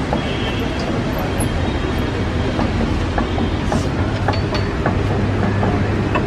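Steady low rumble of road traffic, with scattered light clicks from a hand-cranked metal screw juicer being turned.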